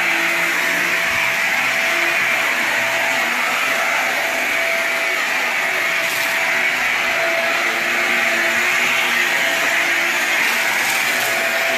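Bagless upright vacuum cleaner running steadily with a constant motor whine as it is pushed over carpet.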